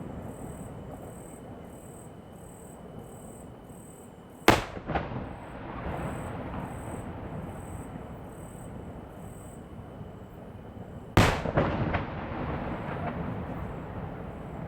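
Fireworks shells bursting: two loud booms about seven seconds apart, each followed by a rolling echo and a few smaller pops.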